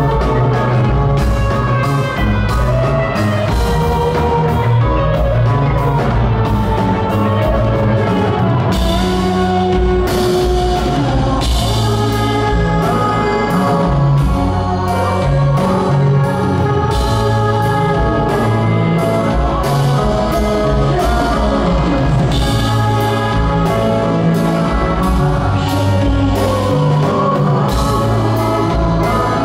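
Live psychedelic rock band playing at a steady, loud level: electric guitar and bass over a drum kit, with regular drum hits.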